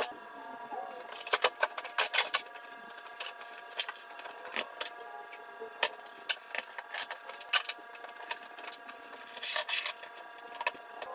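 Hand tools clinking and clattering as they are picked up, sorted and set down or dropped into a toolbox: irregular sharp knocks and clicks, with a few quick runs of rattling. A steady faint hum of several tones runs underneath.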